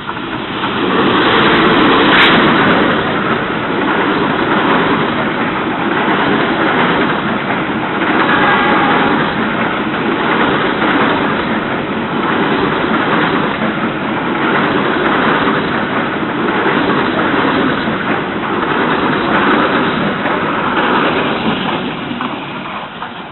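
Diesel locomotive and a long freight train of covered wagons passing close by. The noise swells as the locomotive goes past, with one sharp clank about two seconds in, then the loud rumble and clatter of wagon wheels on the rails runs on and fades near the end.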